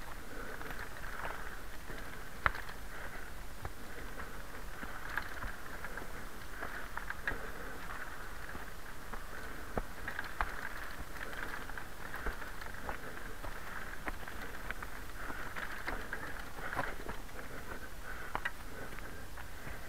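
Knobby off-road tyres of a KMX Cobra recumbent trike rolling over dry leaf litter and dirt: a steady crackling patter with scattered knocks and rattles. One sharp knock about two and a half seconds in.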